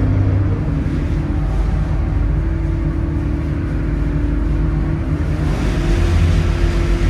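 The ferry's engines droning and humming as it manoeuvres at the pontoon. The low hum eases about half a second in and builds again after about five seconds.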